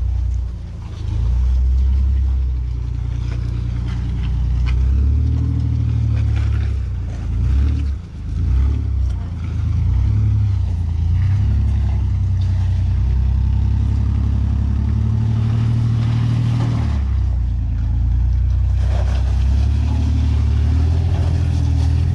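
Off-road SUV engine running at low speed, the throttle rising and falling, with a few knocks near the end.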